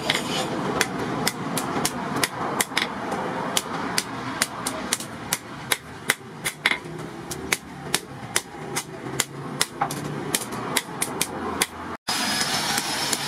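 Hand hammer beating a red-hot strip of motorcycle brake-rotor steel on a post anvil: a run of sharp, irregular blows, about two to three a second, over a steady hiss.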